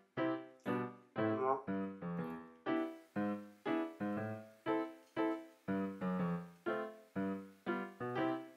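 Background music: a light keyboard tune of short, evenly spaced notes, about two a second, each one dying away quickly.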